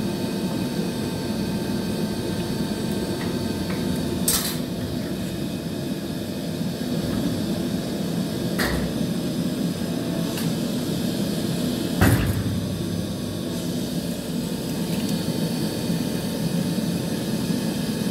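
Hot riveting with a powered rivet squeezer setting a red-hot steel rivet between its dies, over a steady machine roar. Three sharp metallic knocks come about four, eight and a half and twelve seconds in, the last the loudest.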